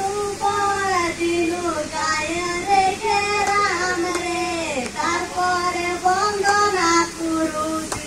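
Schoolgirls singing a song into a microphone: a single melody with long held notes.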